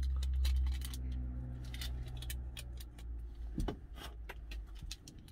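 Crinkling and sharp clicks of a small plastic sachet and a plastic porridge cup being handled, over a low steady hum that fades out about three seconds in.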